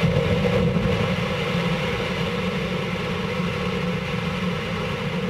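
Soyuz-2.1a rocket's kerosene-oxygen first-stage engines igniting and running at full thrust on the launch pad: a steady, heavy noise whose low end comes up sharply at ignition, right at the start.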